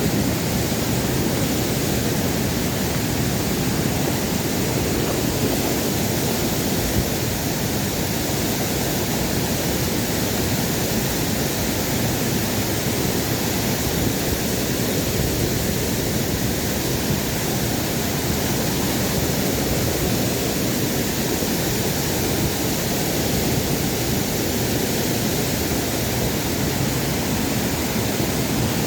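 Waterfall rushing: a loud, steady roar of falling water without a break.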